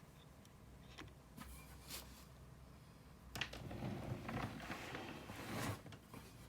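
Faint handling noise: a few light clicks, then a couple of seconds of rustling and rubbing with small knocks, from about three seconds in.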